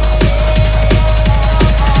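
Electronic music with a fast, steady drum beat, a deep sustained bass and a held high synth note.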